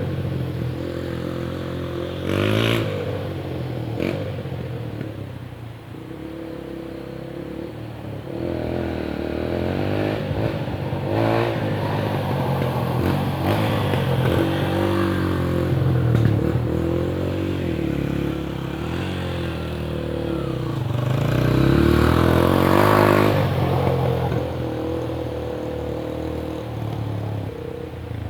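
Dirt bike engine revving up and down over and over as it is ridden through mud, with a few brief clatters. The hardest rev comes about three-quarters of the way through.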